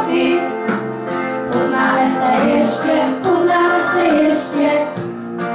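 Music: a group of children singing a song together.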